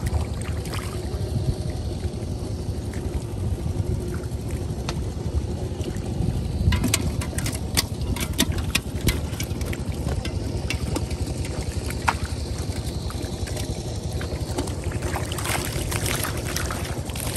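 Water splashing as carp thrash in shallow muddy water and in a water-filled aluminium pot while being caught by hand, over a steady low rumble. Sharp splashes come in a run about seven seconds in and again near the end.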